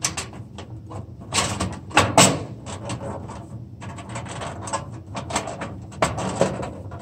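Sheet-metal ballast cover of a fluorescent troffer being fitted and pressed into place: a run of clicks, taps and light metallic knocks, the strongest about a second and a half and two seconds in.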